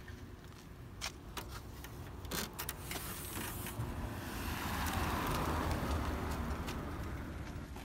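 A passing vehicle, its noise swelling and then fading over a few seconds, over a steady low rumble. Several sharp clicks come in the first three seconds.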